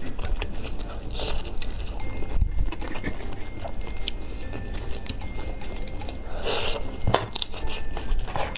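A cooked shrimp's shell being cracked and peeled off by hand close to the microphone: scattered clicks and crackles, with two longer crackling rustles, one about a second in and a stronger one about six and a half seconds in.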